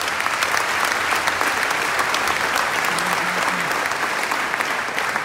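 Large audience in a hall applauding, dense clapping that begins just before and holds steady, easing slightly toward the end.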